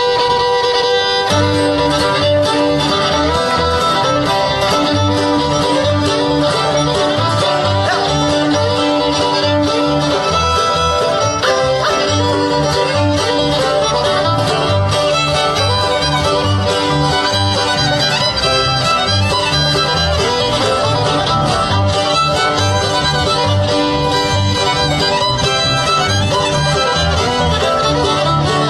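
Bluegrass band playing an instrumental fiddle tune: fiddle leading over banjo, acoustic guitar and upright bass, at a steady driving beat.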